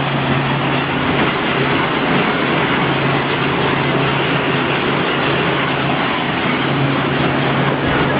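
Heavy industrial machinery running steadily: a continuous mechanical noise with a low, even hum underneath.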